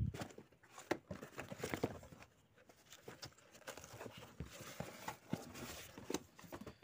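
Cardboard box flaps and packaging being handled, giving irregular rustling, scraping and light knocks.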